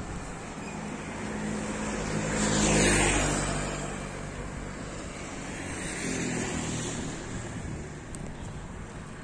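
Road traffic: a motor vehicle passes close by, its engine and tyre noise rising to a peak about three seconds in and then fading, with a fainter second vehicle passing around six seconds.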